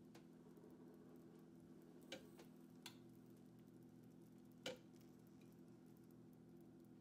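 Near silence: a faint steady low hum of room tone with a few soft clicks, the loudest about two-thirds of the way through.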